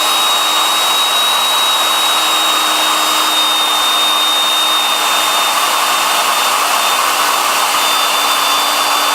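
Skil 2¼-horsepower wood router running steadily at full speed: a constant high-pitched motor whine over a lower hum.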